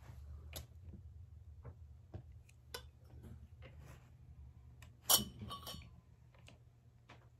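Metal rods and plastic frame pieces of a mini greenhouse being handled and fitted together: small scattered clicks and taps, with one sharp metallic clink about five seconds in that rings briefly.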